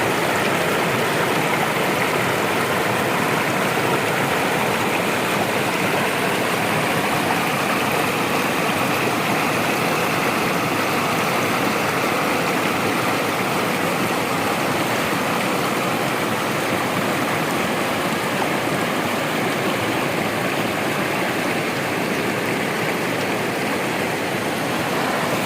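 Waterfall and stream water rushing, a steady, loud noise with no breaks.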